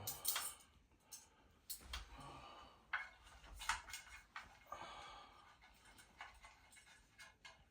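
Irregular rustling and a few light knocks from fan parts being handled during assembly.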